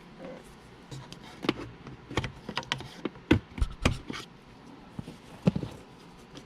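Plastic center-console trim on a Porsche 997 being lifted off, its retaining clips letting go with a run of sharp plastic clicks and knocks, the loudest in the middle and one more near the end.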